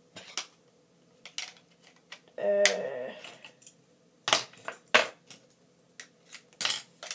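Fingerboard decks clicking and knocking against a fingerboard deck holder as they are slotted in to see how many fit: a scatter of sharp clicks, loudest about four and five seconds in and again near the end.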